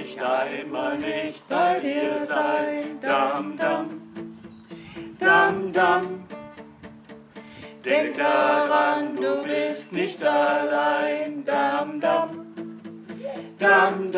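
A man and a woman singing a song to an acoustic guitar.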